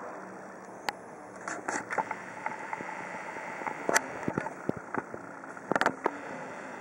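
A steady background noise with irregular sharp clicks and knocks over it, a cluster of several close together near the end.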